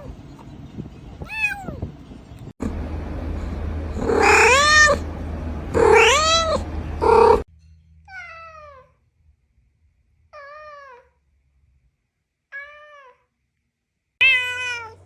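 Domestic cats meowing: about eight separate meows in a row, each rising then falling in pitch. The loudest two come about four and six seconds in, and three softer ones follow in the second half.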